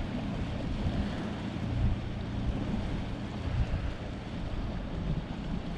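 Wind buffeting the microphone, an uneven low rumble with small gusts, over a steady rushing wash of sea surf.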